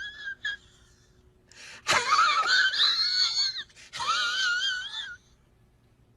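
A meme sound-effect clip: a high-pitched, wavering squeal that comes three times. The first is short and right at the start, the longest begins about two seconds in, and the last comes around four seconds in.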